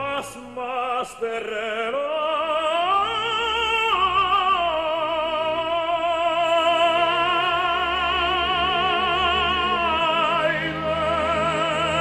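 Operatic tenor singing with orchestra. The voice climbs in pitch, then holds one long note with wide vibrato for about six seconds, over sustained low orchestral tones, and eases off near the end.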